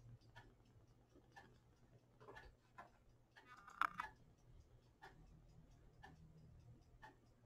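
Faint, even ticking about once a second over a low steady hum. About four seconds in, a short rattle of small clicks as the test clips are fastened onto the capacitor's leads.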